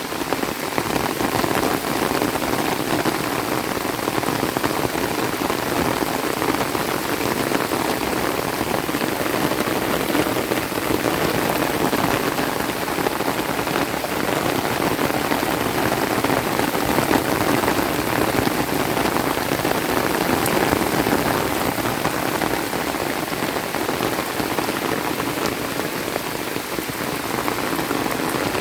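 Heavy rain falling steadily, a dense even hiss of drops as the downpour picks up again.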